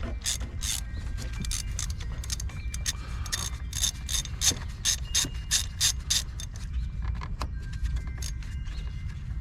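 Socket ratchet on an extension clicking in quick runs of strokes as a spark plug is turned out of the cylinder head, the clicks thinning out in the last couple of seconds.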